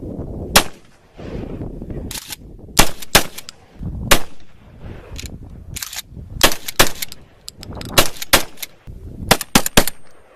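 Gunshots: more than a dozen sharp reports at irregular intervals, some coming in quick pairs and triples, over a low background rumble.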